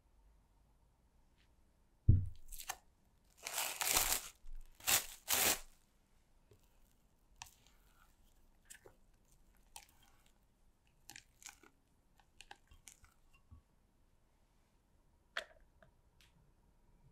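Kitchen handling sounds: a single thump about two seconds in, then two rough rustling swishes, then faint scattered clicks and scrapes of a spatula stirring batter in a glass measuring jug, with one more click near the end.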